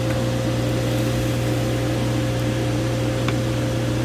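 Steady low electrical hum with a faint, constant higher tone above it, unchanging throughout.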